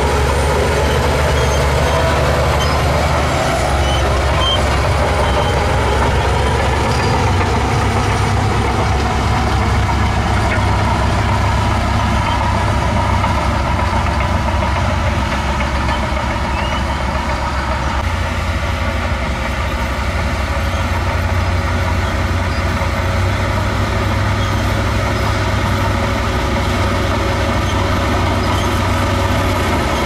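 Shantui DH17 crawler bulldozer's diesel engine running steadily under load as the blade pushes soil, a deep, even engine note with no breaks.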